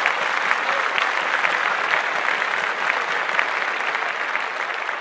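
Applause from many people: a dense clatter of clapping hands right after a song ends, slowly fading.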